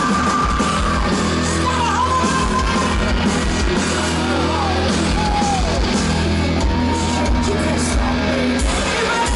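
Live heavy metal band playing loud, with a steady heavy low end, guitars and a singing voice that glides and holds notes.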